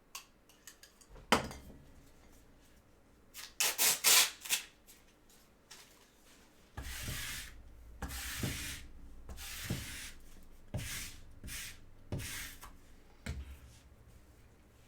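Lint roller rubbed back and forth over a surface in repeated rough strokes, with a cluster of louder scrapes about four seconds in.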